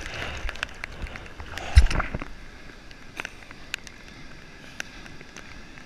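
Sea water sloshing and splashing around a surfboard close to the camera, louder in the first two seconds and then settling, with a thump about two seconds in. Sharp scattered ticks of raindrops hitting the camera housing run throughout.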